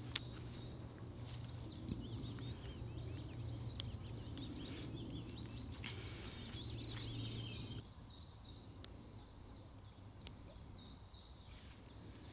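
Birds chirping over a steady low background hum, which drops away about eight seconds in, with a few faint handling clicks.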